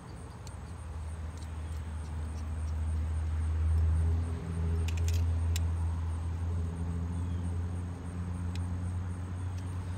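Low engine rumble of a vehicle, building to its loudest about four seconds in and staying strong after, with a few faint small clicks around five seconds in.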